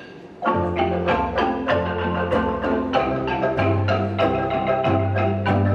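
Kolintang ensemble, a set of Minahasan wooden xylophones, starts playing about half a second in. Quick mallet-struck melody notes ring over sustained low bass notes.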